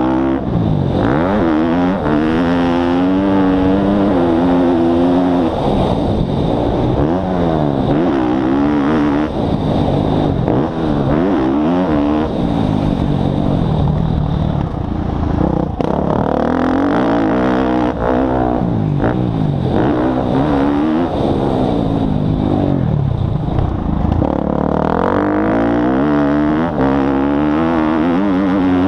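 Motocross dirt bike engine heard from on board as it is ridden hard round a dirt track. Its pitch climbs and drops over and over as the throttle is opened and closed.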